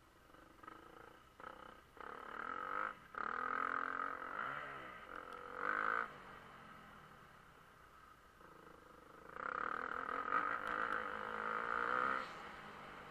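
Motocross bike engine heard from onboard, revving hard in two bursts of throttle with its pitch sweeping up and down, dropping to a low drone for a few seconds in the middle when the throttle is rolled off.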